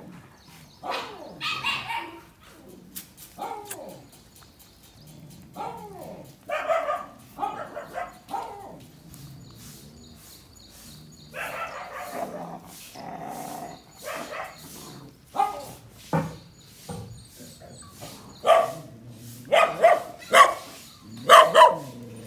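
Dogs barking in short, scattered bursts, becoming louder and more frequent near the end.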